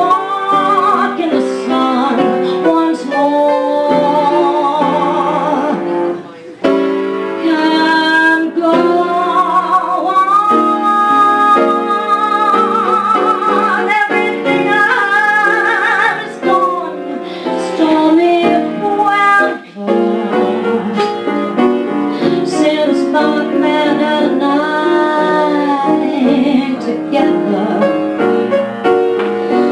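A woman singing a slow jazz ballad with vibrato, accompanied by piano.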